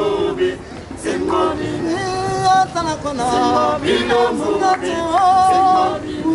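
A men's a cappella group singing in close harmony, several voices holding and sliding between notes together.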